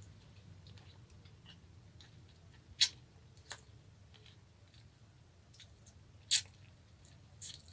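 A small piece of peeled raw ginger being bitten and chewed: a few sharp, crisp crunches, two of them loud, about three seconds apart.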